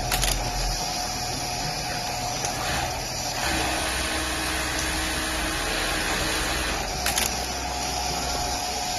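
Electric sewing machine running with a steady motor whirr, with two brief clicks, one at the start and one about seven seconds in.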